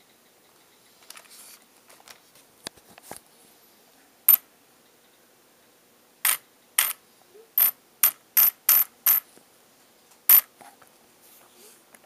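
Losi Mini 8ight RC buggy giving short, sharp clicks on light throttle and steering: a few faint ticks, then nine loud clicks, several in quick succession in the middle. This is the odd noise the new owner hears only at light throttle and steering, which goes away at full throttle and which he attributes to the ESC.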